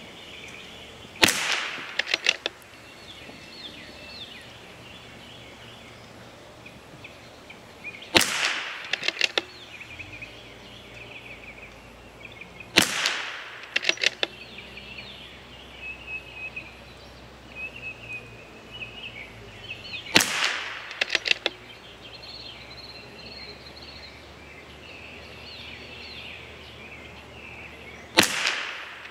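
Five single shots from a CZ 457 MTR .22LR bolt-action rifle, spaced several seconds apart, each followed within a second by a few fainter sharp clicks. Birds chirp faintly in the background between shots.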